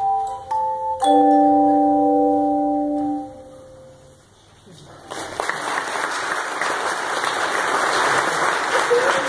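Handheld tone chimes ring the closing notes of a piece. A final chord is struck about a second in, rings on and fades out by about three seconds in. Applause starts about five seconds in.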